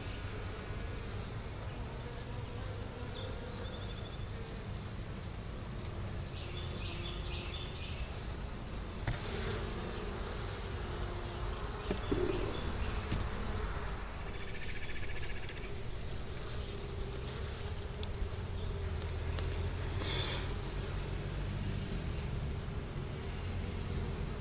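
A colony of honey bees buzzing around an open hive box as a steady, wavering hum, swelling briefly a couple of times.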